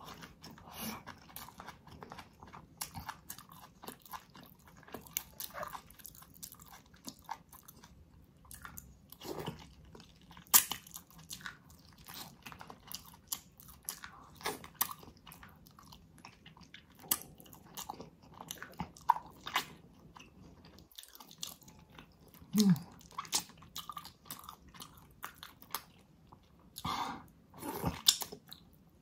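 Close-miked eating of spicy ox feet: biting and chewing hand-held pieces of gelatinous skin and tendon, with many irregular sharp mouth clicks and smacks, a few much louder than the rest.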